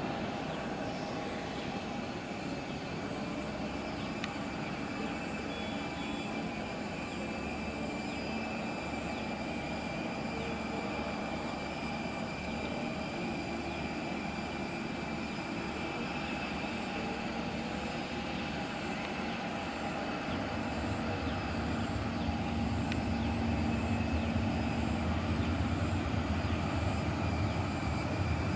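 Airbus A330-343 airliner's Rolls-Royce Trent 700 turbofans running, heard at a distance: a steady jet whine over a low rumble that grows somewhat louder about two-thirds of the way through.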